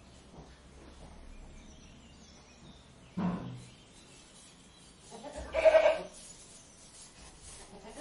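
Goat bleating twice: a short, lower call about three seconds in, then a louder, longer bleat a little before six seconds.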